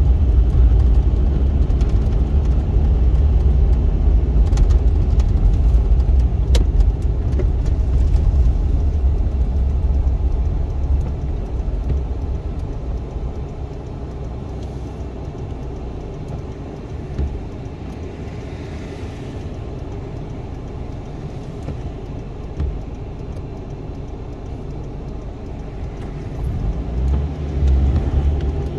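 Cabin sound of a 2001 Suzuki Swift's 1.3-litre four-cylinder engine and tyres on a snowy road: a steady low rumble. It is loud at first, drops to a quieter level a little less than halfway through as the car slows at a junction, and rises again near the end.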